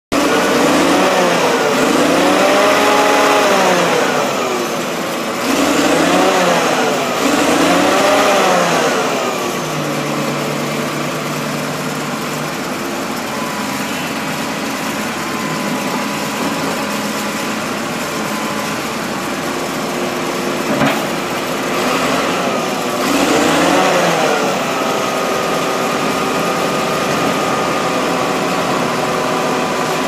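Caterpillar D6G2 bulldozer's diesel engine revved up and back down three times in quick succession, then settling to a steady idle. Near the end it is revved once more and then idles again.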